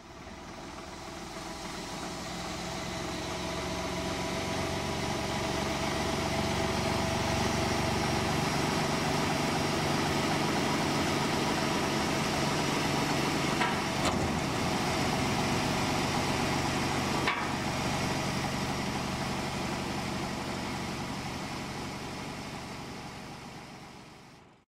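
Diesel engine of an Ingersoll-Rand portable industrial air compressor running steadily, growing louder over the first several seconds. Two sharp clicks sound midway.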